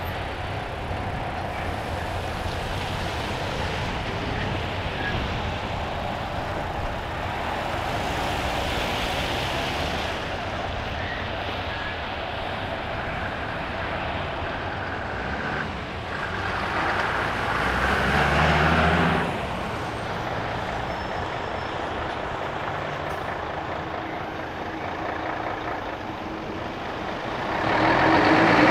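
Steady vehicle noise, with one vehicle passing loudly about two-thirds of the way in and another building near the end.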